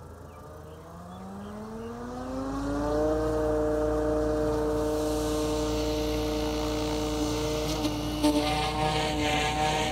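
Electric 700-size RC helicopter (SAB Goblin Black Thunder Sport with a Scorpion HK-4525 520 kV motor) spooling up: the motor and rotor whine rises steadily in pitch and loudness over the first three seconds, then holds steady at head speed. Near the end the sound turns rougher and less even as the blades take load and the helicopter lifts off.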